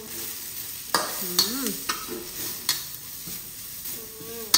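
Bamboo shoot strips frying in oil in a steel wok, with a steady sizzle. A metal spatula stirs them, scraping and knocking against the pan several times.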